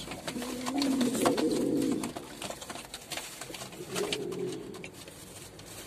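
Domestic pigeon cooing: a long low throaty coo in the first two seconds and a shorter one around four seconds in, from a male pigeon at a female just placed in his nest box. Scattered sharp clicks and scuffles of the birds moving in the box.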